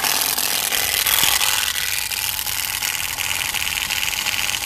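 Turbospoke bicycle exhaust buzzing as the bike is ridden: the motor card flaps against the turning spokes and the exhaust pipe carries it out as a fast, steady, motorbike-like rattle.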